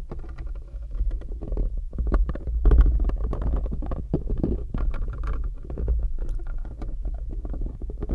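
Fingernails tapping and scratching on a small perfume bottle held right against the microphone's mesh grille. Many quick clicks over a constant low rumble of close handling noise.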